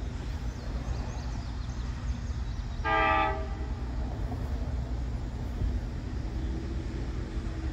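Diesel locomotive air horn giving one short blast about three seconds in, over a steady low rumble.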